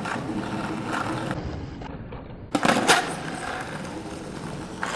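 Skateboard wheels rolling over stone paving with a steady rumble, broken about two and a half seconds in by two sharp clacks a third of a second apart, the board being popped and landing, before the rolling goes on.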